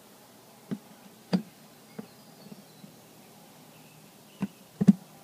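A knife cutting through the wall of a plastic storage bin between drilled holes: scattered sharp clicks and cracks of the plastic giving way, the loudest a quick double crack near the end.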